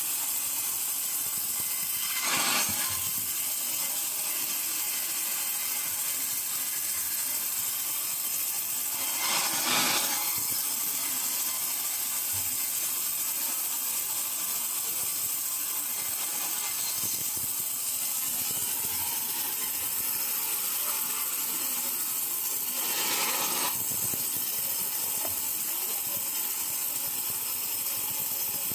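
Pressure-washer spray hissing steadily against a log, with three brief louder swells about two, ten and twenty-three seconds in.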